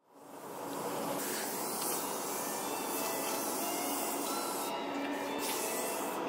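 Aerosol spray paint cans hissing over the steady hum of parked passenger trains with a few faint steady tones. The sound fades in at the start, and the hiss pauses briefly about five seconds in and again near the end.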